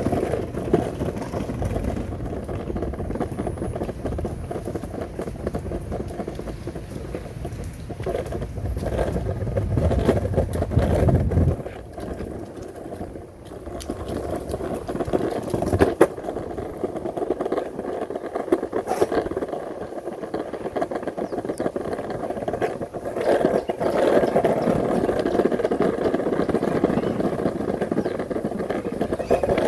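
Surfskate wheels rolling over street pavement, a steady grinding rumble with rattles from the board. There are occasional sharp knocks, the loudest about halfway through. The rumble eases off for a couple of seconds after the first third.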